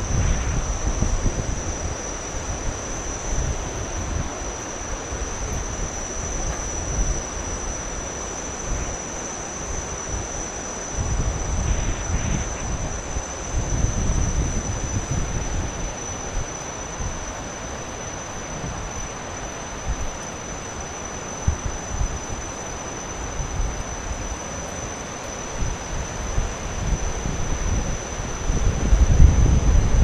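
Wind buffeting the microphone in irregular gusts, heaviest near the end, over a steady rushing noise and a constant thin high-pitched tone.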